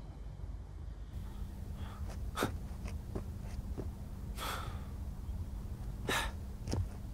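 A young man's breathing: three short, sharp gasps about two seconds apart, over a low outdoor rumble.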